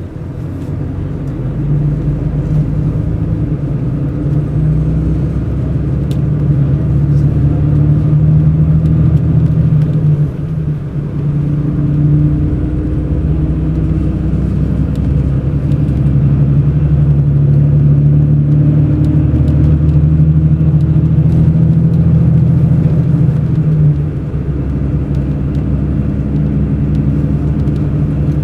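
Mercedes-Benz O500 RSD BlueTec5 coach's diesel engine running under way, a steady low drone. It drops off briefly about ten seconds in and eases down again a few seconds before the end.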